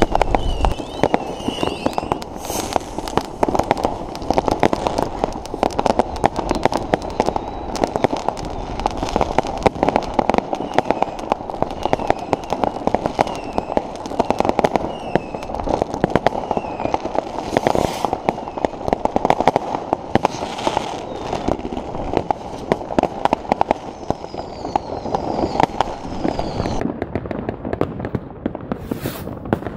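Fireworks set off all across a city below: a dense, continuous crackle and popping of countless rockets and firecrackers. Whistling rockets glide in pitch now and then, and there are a few louder bangs, about two seconds in, around the middle and near the end.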